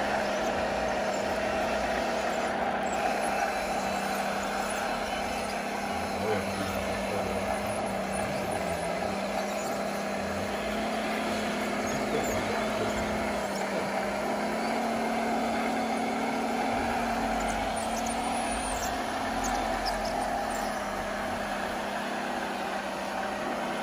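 RC model trucks running, their engine sound steady with a slight rise in pitch partway through, over a murmur of voices.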